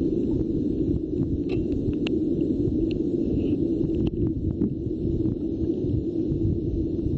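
Steady low rumble of wind on the microphone outdoors by the sea, with a few faint scattered clicks.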